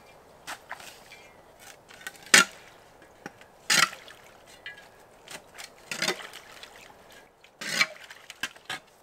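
A long-handled tool scraping and scooping wet muck and debris out of a shallow crock well: four loud, short strokes a second and a half to two seconds apart, with small knocks and clatters between.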